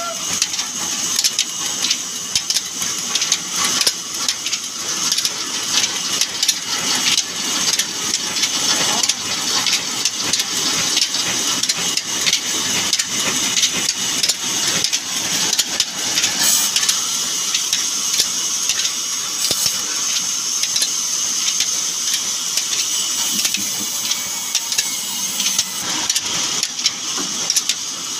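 Old diesel engine running steadily, driving a large band saw, with rapid knocking and a constant high hiss from the running blade. The blade is cutting through a log, throwing sawdust.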